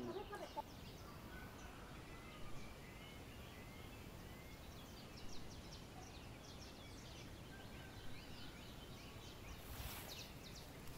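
Faint outdoor ambience with scattered bird calls, short chirps and whistles throughout. A soft rustling noise comes in near the end.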